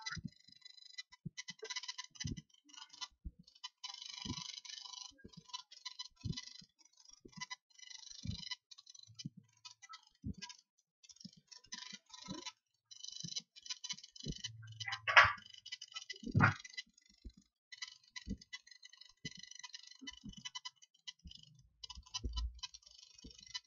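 Irregular clicks and taps of a computer mouse and keyboard, with two louder knocks about fifteen and sixteen and a half seconds in.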